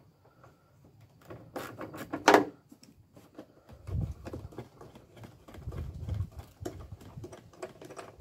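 Ratchet wrench clicking in quick runs as nuts are undone under the bonnet, with a louder metallic knock a little after two seconds in.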